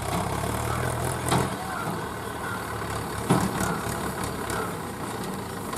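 Mahindra 475 DI tractor's four-cylinder diesel engine running steadily as it tows a loaded trailer, with two sharp knocks about a second and a half and three seconds in.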